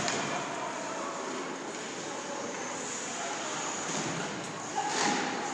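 Steady background noise of an indoor ice rink during a hockey game in play, with a faint steady high whine and a few brief knocks near the end.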